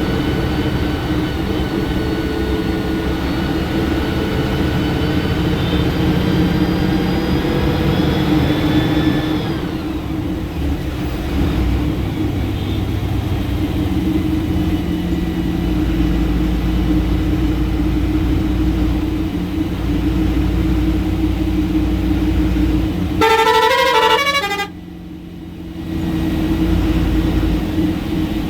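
Ashok Leyland BS6 diesel bus engine running under way, heard from the cabin: its note climbs slowly for about nine seconds, then drops as it changes gear, and carries on steadily. Near the end a multi-tone horn sounds briefly, its notes stepping up and down.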